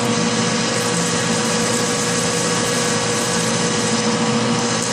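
Metal lathe running, slowly drilling into stainless steel with a 1-inch high-speed steel bit under liquid coolant. The sound is a steady machine hum with a constant whine and hiss, and the chips peel off the cut.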